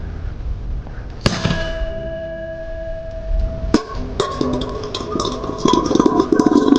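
A firecracker bangs about a second in, launching a metal rice-cooker pot that rings with a steady metallic tone. Nearly three seconds later the pot lands with a crash, cutting the ringing off, then clatters and rattles as it settles.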